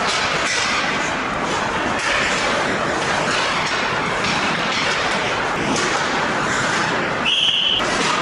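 Ice hockey rink noise during a scrimmage: a steady wash of skates scraping and sticks on the ice. About seven seconds in, one short referee's whistle blast sounds.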